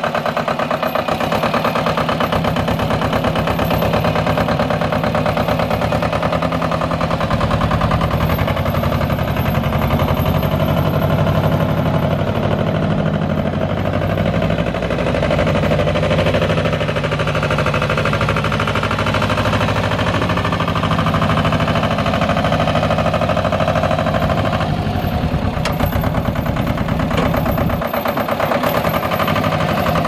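Goldoni Euro 30RS tractor's 1248 cc Lombardini two-cylinder diesel engine running while the tractor is driven, a rapid, even chug. Its pitch shifts a little about seven seconds in and again near the end.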